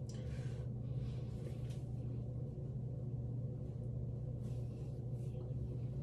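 Steady low hum, with a few faint brief rustles of hands working through the hair of a wig.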